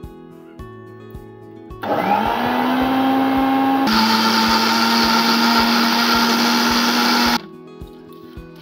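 Bajaj mixer grinder motor blending watermelon pieces into juice in its steel jar: it starts about two seconds in with a rising whine that settles into a steady hum, the sound turns a little lower and hissier about halfway, and it cuts off suddenly after about five and a half seconds.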